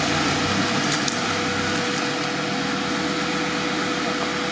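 Off-road prototype's engine idling steadily close by, with a strong even hiss over the engine note.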